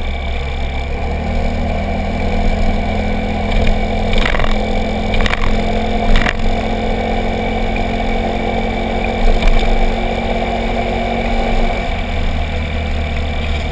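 Motorcycle riding at a steady pace, its engine holding an even note under wind noise on the microphone. A few sharp knocks come about four to six seconds in.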